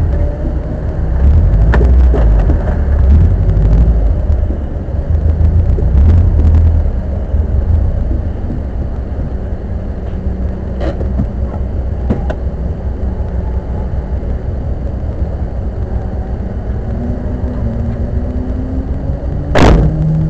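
Car on the move: a steady low road rumble, heavier in the first seven seconds, with a few faint clicks, an engine note rising over the last few seconds, and one sharp knock near the end.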